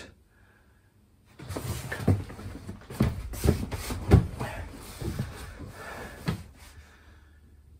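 A person shifting along a cushioned wooden dinette bench: a run of dull thumps and knocks from the bench and its seat cushions, with rustling and shoe scuffs on the floor, starting about a second and a half in.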